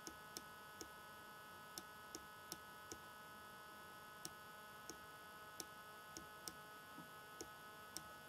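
Faint sharp clicks at irregular spacing, about fifteen of them, as digits are hand-written on screen, over a steady electrical mains hum.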